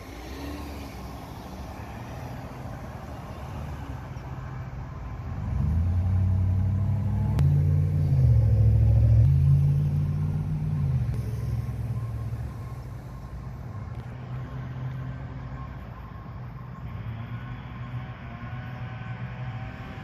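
Road traffic with a heavy vehicle's engine rumbling close by. It grows louder about a third of the way in, its pitch dipping and rising again over a few seconds, then settles back to a steady low hum.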